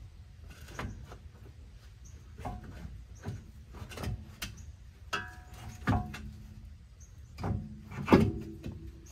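Irregular metallic knocks and clunks, some leaving a short ring, as the steering rack is twisted and shifted against the subframe and suspension parts in a cramped space. The loudest knock comes near the end.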